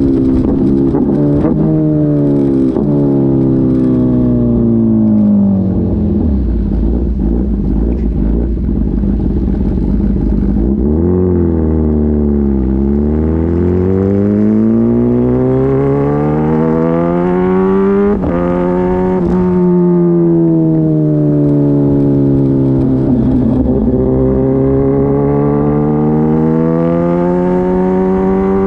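Kawasaki ZX-10RR's inline-four engine running loud through an Arrow exhaust with the baffle (dB killer) removed, on the move. The revs fall away, hold low for a few seconds, then climb through the gears with brief breaks at the shifts, drop again and climb once more near the end.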